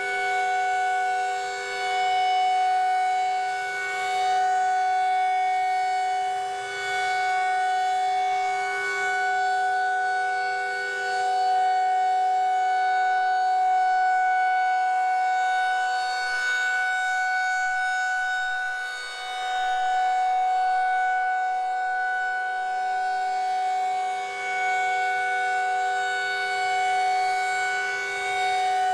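Federal Signal 2001-SRN rotating electronic outdoor warning siren sounding the steady Alert signal. It holds a steady tone made of a few pitches sounding together, and the loudness swells and dips every few seconds as the rotating speaker head sweeps past.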